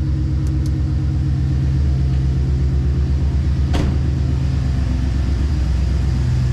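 A 2008 Chevrolet Silverado's 5.3-litre V8 idling with a rhythmic thudding misfire, which a scan tool later traces to cylinder 4, running through a cut-off exhaust. A single sharp click about four seconds in.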